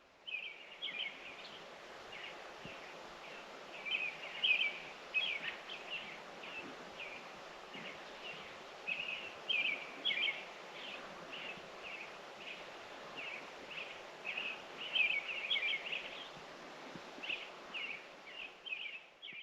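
Small birds chirping outdoors, many short calls in quick runs, over a steady background hiss.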